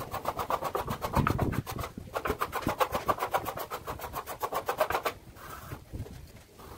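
A hand tool rubbed quickly back and forth over a surface, in many quick, even strokes, stopping about five seconds in.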